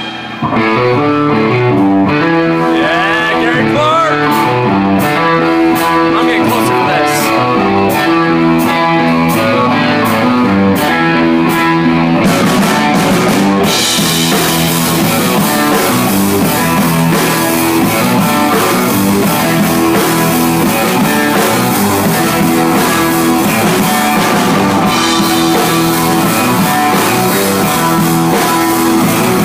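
Live blues-rock band playing: electric guitar over a drum kit, coming in sharply just after the start. Evenly spaced cymbal ticks in the first half give way to a steady cymbal wash from about halfway on.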